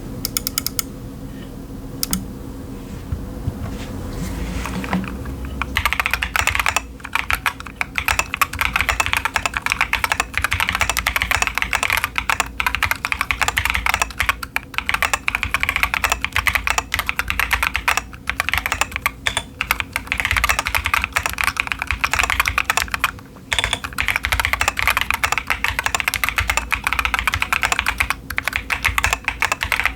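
Continuous typing on a Keychron Q10 mechanical keyboard with TTC Chaotic Panda switches and SA-profile doubleshot ABS keycaps. The typing starts about six seconds in and pauses briefly once near the end. Before it there is only a low steady hum and a few scattered clicks.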